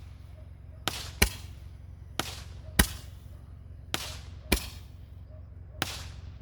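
Aerial fireworks going off: a softer pop followed about half a second later by a sharp, louder bang, three times over, with one more pop near the end. Each loud bang trails off in a brief hiss.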